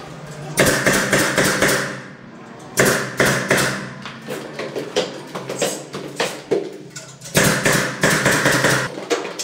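Pneumatic nail gun fixing metal trim strips to a plasterboard ceiling. It fires in three quick runs of sharp taps with air hiss: about half a second in, near three seconds, and around seven and a half seconds. Fainter knocks come in between.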